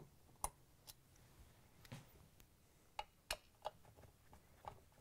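Faint, irregular clicks, about seven in all, of a Phillips screwdriver working the cover screws out of a KitchenAid stand mixer's housing.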